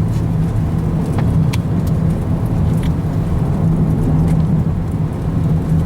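Car engine and road noise heard from inside the vehicle: a steady low hum.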